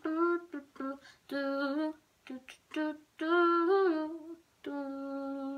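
A young woman humming a melody: a run of short notes with brief pauses, then one long held note near the end.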